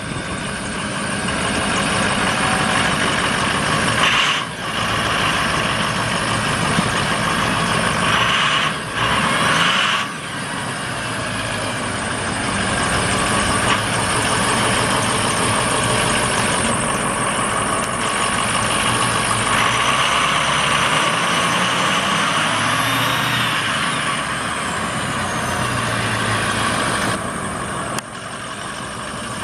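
Diesel engine of a medium-duty flatbed truck running continuously, an International VT365 6.0 L V8.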